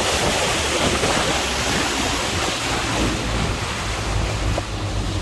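Motorboat underway on open water: wind buffeting the microphone and water rushing past, over a steady low engine drone.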